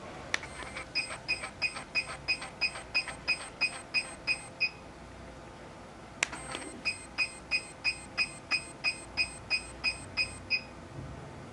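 HIFU machine beeping once for each ultrasound shot as the handpiece fires a line of shots, about three evenly spaced beeps a second. There are two runs of about a dozen beeps each, and each run begins with a sharp click.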